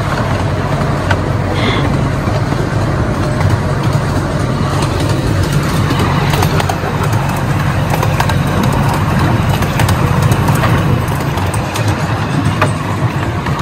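Ride-on miniature railway train running along its track: a steady rumble of the carriage wheels on the rails, with occasional light clicks.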